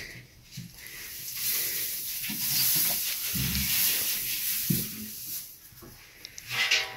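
Dry hay rustling and hissing as it is tipped out of a metal basin into a wooden manger, with a few dull thumps. A goat bleats briefly near the end.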